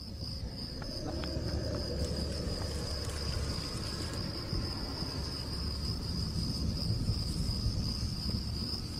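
Night insect ambience: crickets chirring in a steady high band, over a low rumble.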